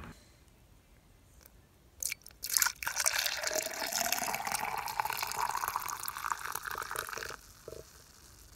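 Frothy warm milk poured from a pot into a cup: a steady stream of liquid for about four seconds, rising in pitch as the cup fills, then a few last drips. A couple of short knocks just before the pour begins.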